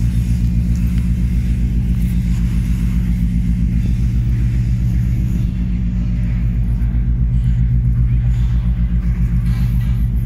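Heavy engine running steadily: a loud low rumble with an even, rapid throbbing pulse.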